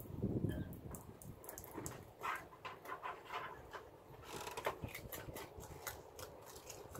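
River otter chewing and crunching a crab, a rapid irregular run of sharp shell crackles and wet smacks.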